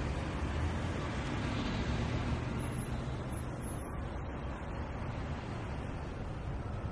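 City street traffic at rush hour: a steady wash of passing cars and engines, with a low engine rumble under a broad hiss of tyres.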